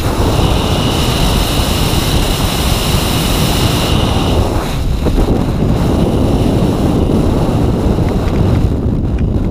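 Freefall wind rushing loudly over a skydiver's helmet-camera microphone while tracking, a steady dense roar with a high whistle over the first few seconds. The hiss thins out near the end.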